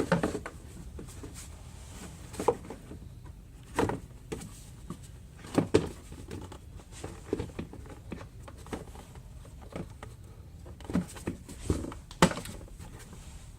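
Dodge Ram 5.7 Hemi engine cover knocking and clicking as it is shifted and lined up onto its mounting tabs and rubber grommets: a scattering of short knocks, the loudest about two and a half seconds in, at about six seconds and near the end.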